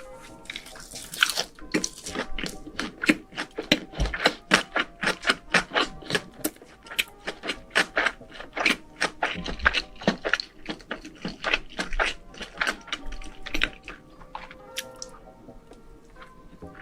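A person chewing crunchy food with the mouth close to the microphone: rapid crisp crunches, several a second, thinning out near the end, over faint background music.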